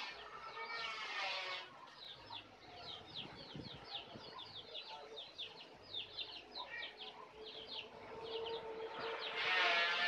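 Black-naped oriole calling: a long run of short, sharp, downward-sliding chirps, about four or five a second, between stretches of a dense, fast-wavering trill at the start and again near the end.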